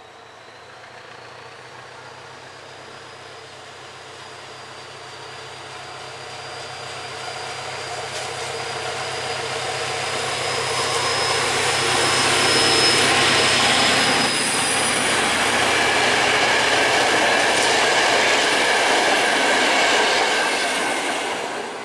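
SM42 diesel shunting locomotive, with its V8 diesel engine under load, hauling three passenger coaches up to and past the listener. The rumble and wheel noise grow steadily louder and peak about two-thirds of the way through, with a thin high whine and a few sharp clicks of wheels over rail joints. The coaches run on past at full level until the sound falls away at the very end.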